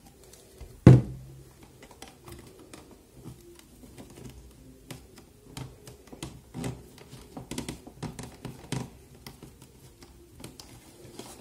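A single sharp knock about a second in, a plastic glue bottle set down on a hard tabletop, followed by a run of small irregular taps and clicks as card-stock flaps are handled and pressed together by fingers.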